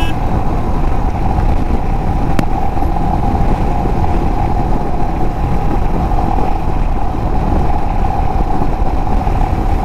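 Royal Enfield Himalayan motorcycle cruising steadily, its engine running evenly under a heavy, constant low rumble of riding noise.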